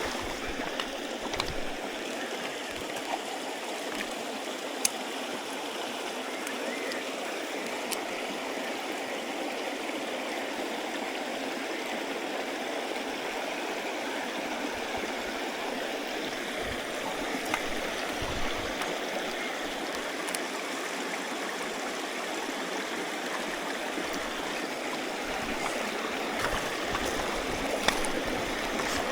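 Shallow stream running over rocks: a steady rush of water, with a few faint clicks.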